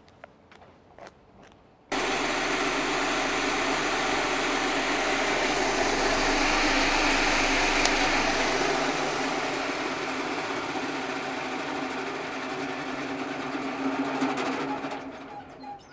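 Koei Sangyo 1000-type Sato-style circular vibrating sieve starting up about two seconds in: its vibration motor sets the stainless sieve frame buzzing and rattling in a steady loud hum, which winds down and fades near the end as the machine stops.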